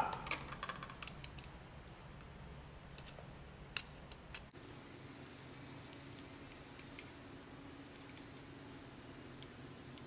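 Faint scattered clicks and taps of a screwdriver and stripped wire ends on the terminal screws of a four-way light switch as the wires are fastened on. One sharper click comes a little before halfway.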